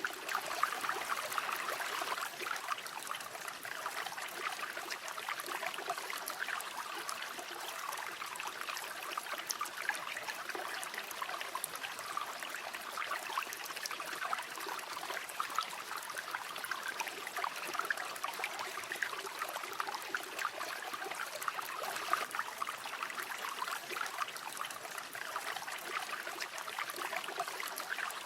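River water flowing steadily over stones, a continuous babbling rush with fine splashing and trickling.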